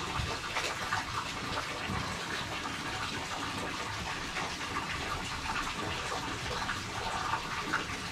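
Tap water running steadily into a sink during dishwashing, with light clinks here and there.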